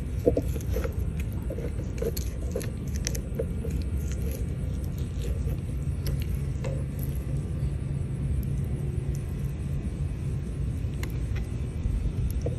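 Steady low outdoor rumble like road traffic, with a faint engine hum in the middle, and light clicks and scrapes of a fillet knife working against a plastic cutting board in the first few seconds.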